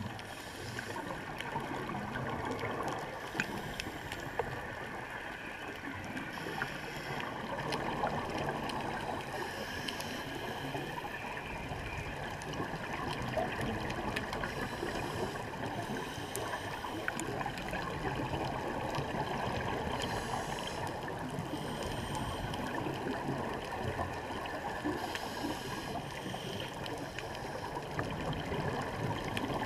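Underwater ambience picked up by a camera in its waterproof housing: a steady muffled wash of water with many faint scattered clicks. Every few seconds a brief hissing gurgle of exhaled scuba bubbles rises over it.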